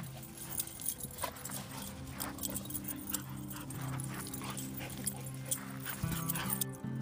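Dogs play-fighting on a dirt ground: quick short dog sounds and scuffling that stop near the end, over background music with steady held notes.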